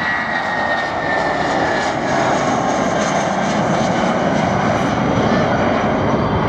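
Jet airliner's engines at take-off power: a loud, steady noise with a high whine that falls slightly in pitch over the first two seconds.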